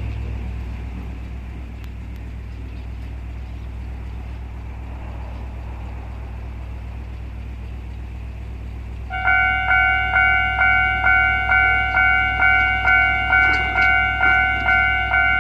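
A steady low rumble, then about nine seconds in a Japanese level-crossing electronic warning bell starts ringing, about two strikes a second: the signal that a train is approaching.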